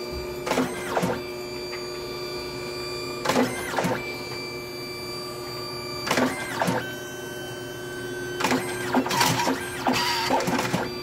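DNP DS-RX1 dye-sublimation photo printer printing, with a steady hum. A short double burst of mechanical noise comes about every three seconds, and a longer, busier stretch comes near the end as prints are fed out.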